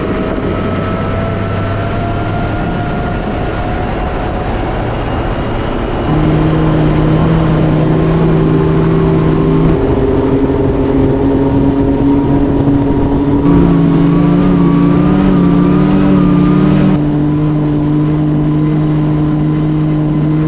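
Electric boat running at speed: the steady whine of its E-Motion 180 HP electric outboard over rushing water and wind. The pitch climbs slowly at first, then the sound steps up louder about six seconds in.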